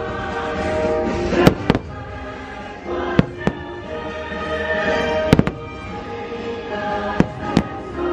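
Aerial fireworks bursting with sharp bangs about every second or two, some in quick pairs, over orchestral show music playing throughout.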